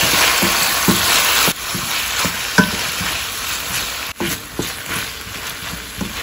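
Chopped tomatoes, shallots and garlic sizzling in oil in a stainless-steel kadai as a spatula stirs them, with a few light knocks of the spatula against the pan. The sizzle is loudest for the first second and a half, then drops back.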